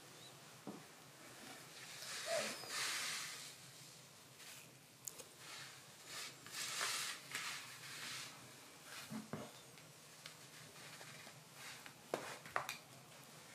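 Bedsheets and duvet rustling in soft swishes as legs in high-heeled sandals shift across the bed, with a few light knocks, two of them close together near the end.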